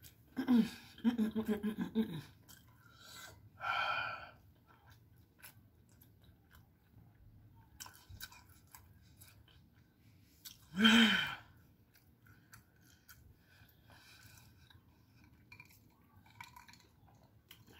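A woman's wordless pained groans and moans at the burn of a hot and spicy Jamaican patty, with a short breathy outburst about four seconds in and another groan about eleven seconds in. Faint chewing and mouth clicks come in between.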